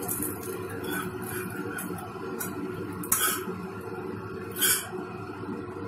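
Flat metal spatula scraping against the dosa pan as a ragi dosa is worked loose and folded, with two short, sharp scrapes about three and four and a half seconds in, over a steady low hum.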